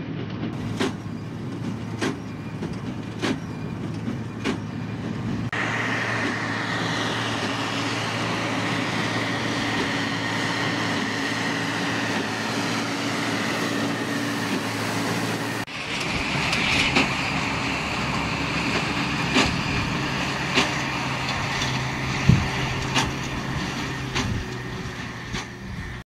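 New Holland TM165 tractor running under load as it pulls a New Holland BigBaler 1290 large square baler through wheat straw, the baler's plunger knocking steadily about once every second and a bit. At about 16 s the sound changes to a wheel loader's engine running.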